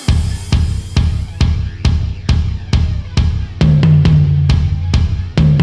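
Rock drum kit playing a steady beat: bass drum on every beat at just over two hits a second, with snare and cymbal hits. A low held note joins about three and a half seconds in.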